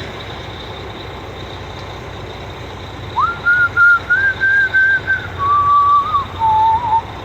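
A person whistling a short tune, starting about three seconds in, with the notes stepping down in pitch over about four seconds. Underneath is the low, steady running of the idling truck as it builds air pressure.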